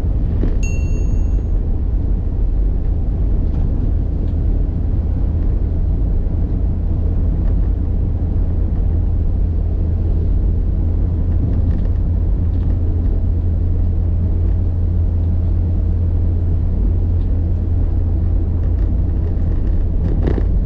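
Steady low rumble of a vehicle on the move, heavy at the bottom end as from road and wind noise on the microphone. A short high beep sounds about a second in.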